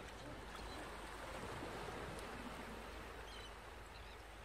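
Seaside ambience: a steady wash of surf and wind noise, with a few faint high chirps near the end.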